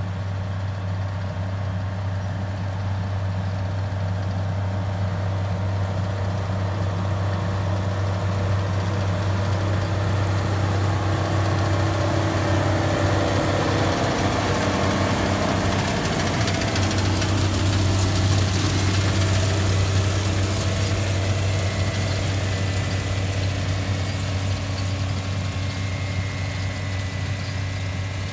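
Case International 7110 Magnum tractor's 8.3-litre six-cylinder diesel running steadily under load as it pulls a corn planter through the field. It grows louder as the tractor and planter pass close about halfway through, then eases off as they move away.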